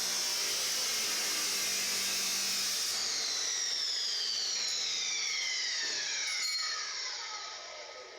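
Chop saw cutting through a metal gate, then the motor is switched off about three seconds in. The blade spins down with a falling whine that fades away near the end.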